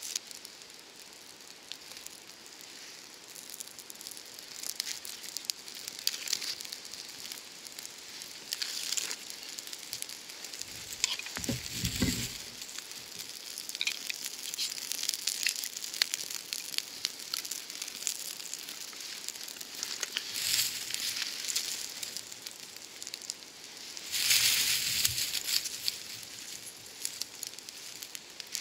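Small fire of feather sticks and wood shavings crackling and hissing, with rustling and knocks as dry twigs are handled and laid on it; the loudest rustle comes near the end.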